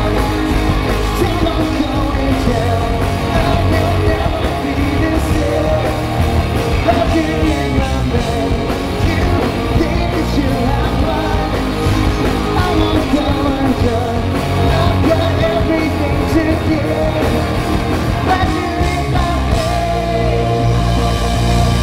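Live rock band playing a song: electric guitars through Marshall amplifiers, drum kit and a male lead singer, loud and continuous.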